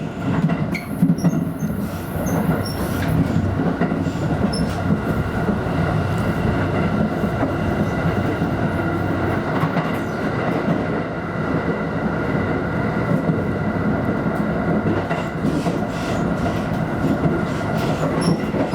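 Limited express Thunderbird train running on the rails, heard from inside the passenger car: a steady rumble of wheels on track with a faint clickety-clack and a few steady whining tones.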